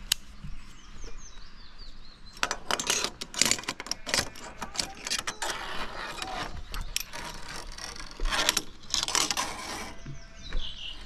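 Metal gear on a high ropes course rattling and clicking: a dense run of clicks and scrapes that starts about two seconds in and dies away near the end.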